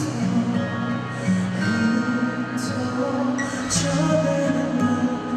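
Live ballad music: a man singing into a microphone over instrumental accompaniment, with sustained held notes.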